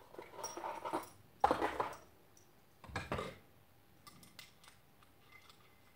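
Small metal tool parts clinking and rattling in the hands as a small bearing puller is taken out and handled. There is a louder clatter about a second and a half in and another about three seconds in, then a few light metallic clicks.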